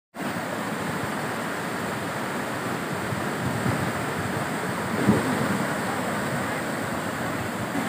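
Fast, muddy floodwater of a swollen river rushing steadily, with one brief louder low bump about five seconds in.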